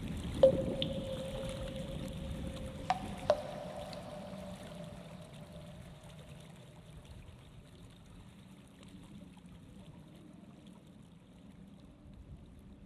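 A soft, water-like rushing noise that fades away slowly, with a ringing tone struck about half a second in, the loudest sound, and two quicker strikes of higher ringing tones about three seconds in, each dying away slowly.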